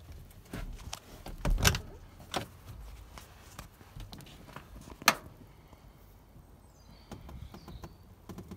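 Scattered knocks and clicks from handling inside the car, loudest as a cluster of knocks about a second and a half in and a single sharp click about five seconds in.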